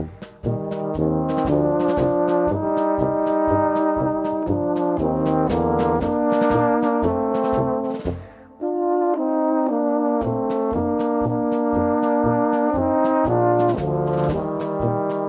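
Background music: brass instruments playing a melody over a steady beat, with the bass and beat dropping out for a couple of seconds near the middle.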